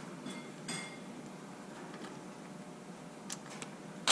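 A few faint clicks and light metallic clinks of a hex driver bit being set onto a screw in a plastic RC truck chassis, with low room noise between them.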